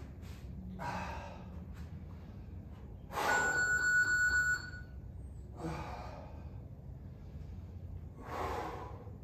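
A man breathing hard through kettlebell squat-and-press reps: four forceful exhalations about two and a half seconds apart. The loudest, about three seconds in, comes with a steady high-pitched tone lasting about a second and a half.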